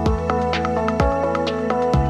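Background music: electronic, with sustained synth notes over a steady beat and a bass line that changes note about once a second.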